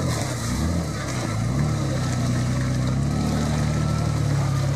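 Jeep Wrangler's diesel engine working off-road: the revs drop at first, climb again about a second and a half in, then hold steady.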